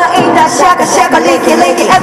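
Live hip-hop concert music with many voices shouting and singing along.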